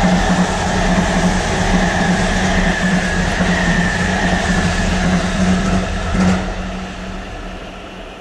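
E257-series limited express train running through the station at speed: a steady rumble of wheels on rail with a whining tone. A knock comes about six seconds in as the last car goes by, then the sound fades away.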